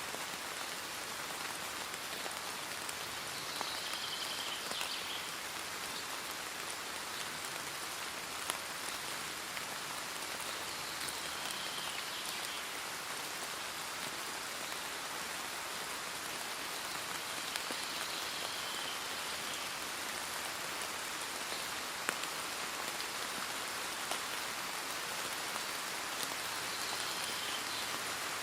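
Steady rain falling on a surface, with scattered individual drops ticking.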